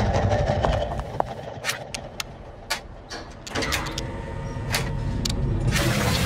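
Trailer sound design: a low rumble with a scattering of sharp, separate clicks and knocks, spaced irregularly about half a second apart.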